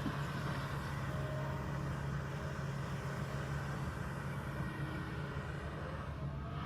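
Kobelco excavator's diesel engine running steadily at an even pitch.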